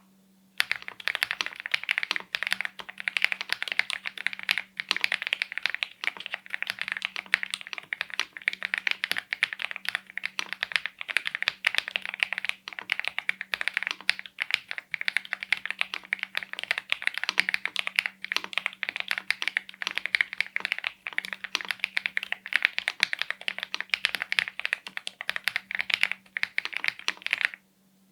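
Continuous fast typing on an MCHOSE X75 gasket-mount mechanical keyboard with KTT Hyacinth switches and stock keycaps: a dense run of keystroke clacks that stops just before the end.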